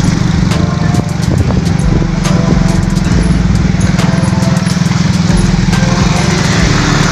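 Small motorcycle engine running steadily, a constant low drone.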